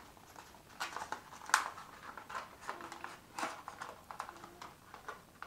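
Small cardboard box handled and opened by hand: scattered taps, scrapes and rustles, the sharpest about a second and a half in.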